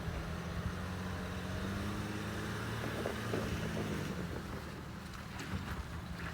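A motor running with a steady low hum whose pitch shifts slightly for a couple of seconds.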